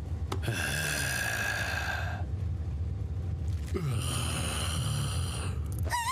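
A grotesque anime demon's strained, drawn-out vocal sounds, heard twice, each about two seconds long, over a low steady rumble.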